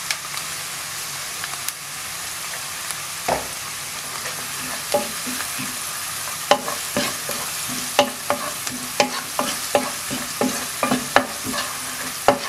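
Chopped onions and coconut slices sizzling in coconut oil in a non-stick frying pan. Partway through, a wooden spatula starts stirring them, knocking and scraping against the pan about once or twice a second.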